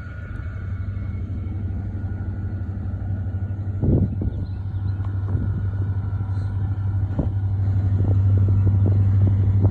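Train rumbling and growing steadily louder as it approaches, with a few sharp clanks.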